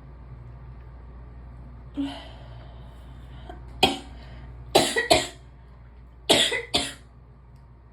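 A person sneezing in a rapid fit: a breath in about two seconds in, then five sharp sneezes, one on its own followed by two quick pairs.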